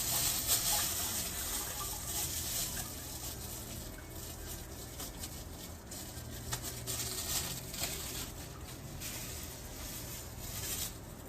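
Knife slicing an onion on a cutting board: light, irregular taps over a steady hiss.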